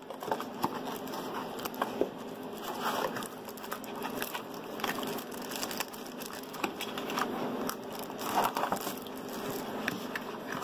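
Cardboard phone box being opened and handled: flaps folded back and packaging pulled, with many small clicks, taps and scrapes and some rustling of the plastic wrapping.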